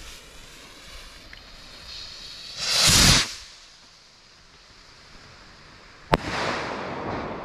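Sky Monster skyrocket: the lit fuse fizzes, a loud whoosh about three seconds in as the rocket launches off its stick, then one sharp bang about six seconds in as it bursts overhead, with a fading hiss after it.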